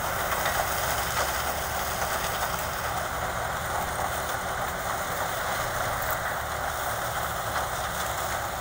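Sugarcane harvester running steadily as it cuts through standing cane, a continuous mechanical din with a low engine rumble underneath.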